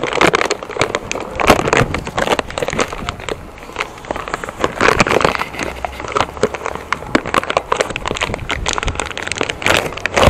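Clear plastic bag crinkling and crackling in the hands as a part is worked out of its packaging, with irregular sharp crackles throughout.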